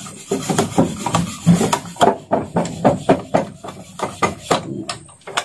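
Repeated rubbing or scraping strokes by hand on a part, several a second and uneven in rhythm.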